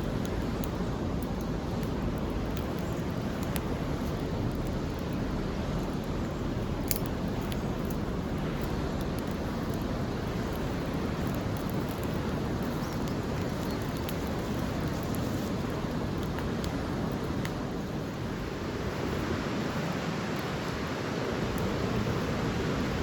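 Steady rushing outdoor noise with a few faint sharp clicks, a couple of them in the first several seconds.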